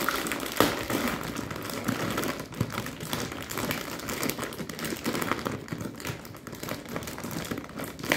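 Plastic bag of dry penne rigate crinkling and crackling as hands grip and pull at its top to tear it open.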